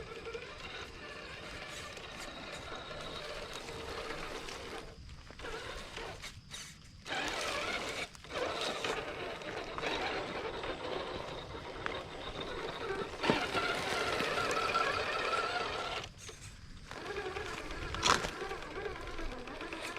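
RC crawler's electric motor and gear drivetrain whining, its pitch shifting as the throttle changes, and cutting out for moments when the throttle is let off. There is one sharp knock near the end, as of the truck striking rock.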